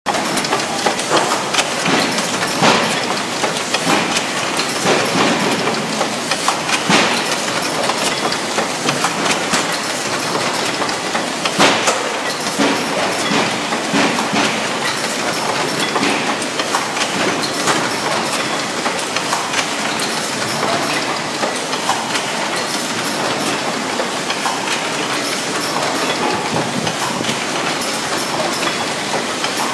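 ST036B automatic case-making machine for grey-board boxes running: a steady, dense mechanical clatter of quick clicks and knocks, with a few sharper knocks standing out.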